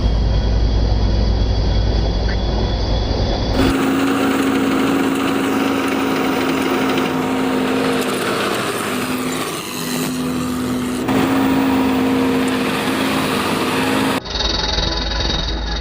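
Rice combine harvester running in the field: a steady engine drone with a constant hum. It cuts in a few seconds in and gives way to background music near the end.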